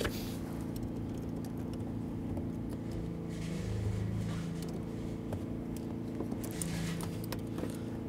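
An engine running steadily, an even drone, with light clicks and rustles from a rubber pond liner being lifted and cut with a razor blade.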